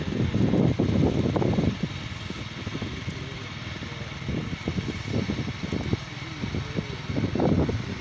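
Wind buffeting the phone's microphone: a gusty, uneven rumble, loudest for the first two seconds, then dropping and swelling again in gusts.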